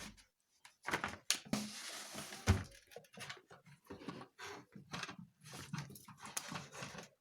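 Hands working on a home theater speaker cabinet to open its front: irregular plastic and metal clicks, knocks and scraping, with one loud knock about two and a half seconds in.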